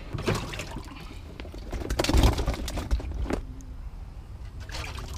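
Water splashing and sloshing in a boat's live well as bass are grabbed out of it by hand, with a few knocks against the well. The loudest splashing comes about two seconds in.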